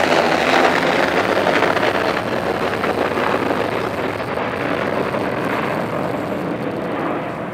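Boeing 757-200 jet engines at take-off climb power, a loud steady roar as the airliner passes overhead and climbs away. The roar slowly fades and grows duller as it recedes.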